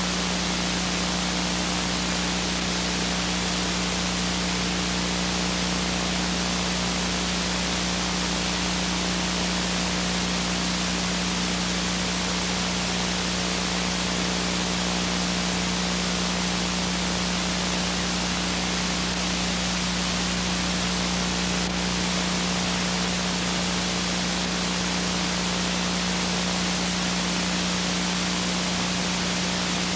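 Steady hiss with a low electrical hum under it and no programme sound: the noise of a blank stretch of videotape played back.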